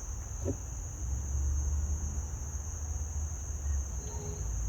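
Crickets trilling steadily, with a low rumble that rises about a second in and fades near the end.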